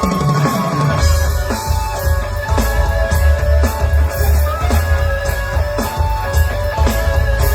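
Live rock band playing, led by guitar, with heavy bass and drums coming in about a second in and keeping a steady beat.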